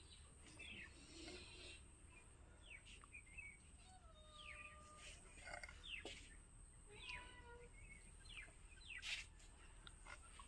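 Faint bird chirps, short falling calls repeated every second or so, with a brief knock about nine seconds in.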